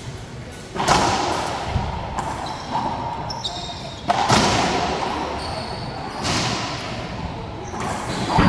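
A racquetball rally: the ball smacked by racquets and slamming off the court walls, sharp cracks every second or two that echo in the enclosed court, with short high sneaker squeaks on the hardwood floor between the shots.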